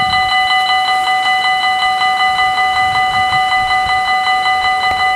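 Level crossing warning bell ringing rapidly and steadily, about six strokes a second, signalling an approaching train.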